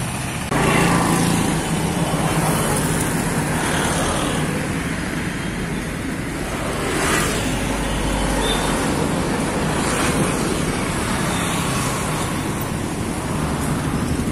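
Steady road traffic noise with a low hum, swelling a few times as vehicles pass.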